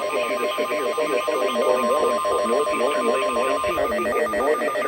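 Emergency Alert System alarm tones. A steady high electronic tone is held and cuts off about four seconds in, layered with a fast, evenly pulsing beep and a wavering tone beneath.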